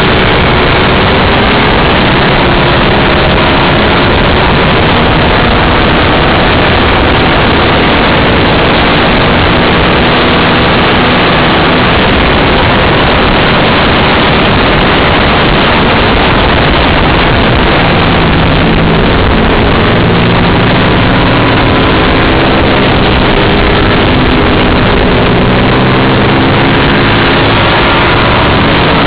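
Onboard sound of a racing motorcycle at speed: a loud, steady rush of wind on the camera microphone over the engine, whose pitch keeps rising and falling as the rider works the throttle and gears through the corners.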